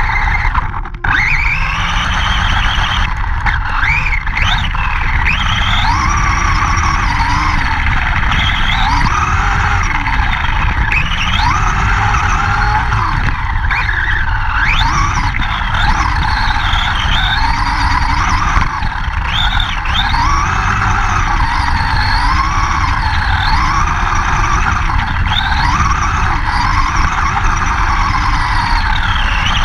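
Redcat 1/10 RC monster truck's motor whining, its pitch rising and falling over and over as the throttle is worked. Underneath is a steady rumble from wind and the ground on the camera riding on the truck.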